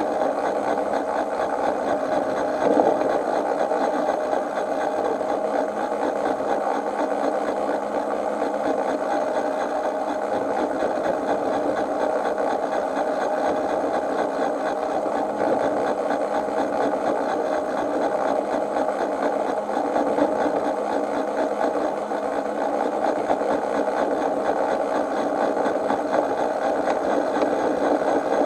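Miniature railway train running steadily along its track, a continuous mechanical running noise from the locomotive and wheels on the rails, with one brief louder bump about three seconds in.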